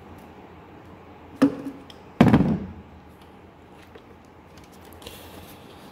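Two sharp clacks under a second apart, the second louder, as hand crimpers close on a blue insulated ring terminal on a ground wire.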